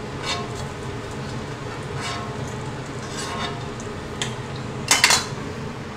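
Food frying in hot oil in a wok, a steady sizzle with light stirring scrapes, and a brief clatter of a metal utensil against the pan about five seconds in.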